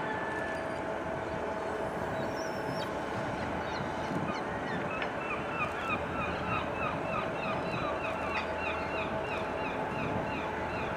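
A bird calling in a rapid run of short, falling notes, several a second, starting about five seconds in, over a steady background of outdoor noise with a faint steady hum from the river traffic.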